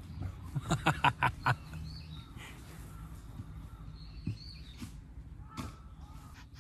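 Rustling and a quick run of soft knocks, about a second in, as a reindeer hide is handled close to the microphone, with small birds chirping faintly now and then.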